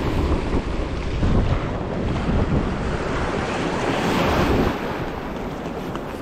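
Wind buffeting the microphone over the wash of surf, swelling in gusts about a second in and again around four seconds.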